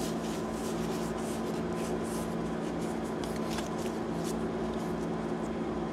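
Pokémon trading cards sliding and rubbing against each other as a pack is flipped through by hand, a string of short, irregular brushing strokes. A steady low hum runs underneath.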